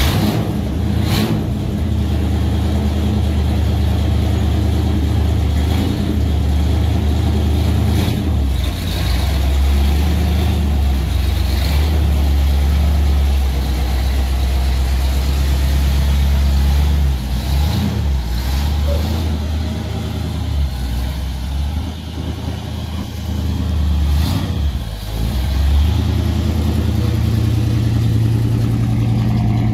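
1960 Chevrolet Impala's 348 big-block V8 running just after starting, steady and loud, with the engine speed dipping and rising briefly twice in the second half.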